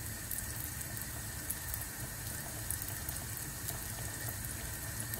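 Rounds of pişi dough deep-frying in hot oil in a pot: a steady sizzle flecked with small crackles.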